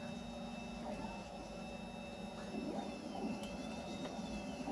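Steady electrical hum with a thin high-pitched whine, and soft rustling and clicking of thin wires and alligator clips being handled, most noticeable around the middle.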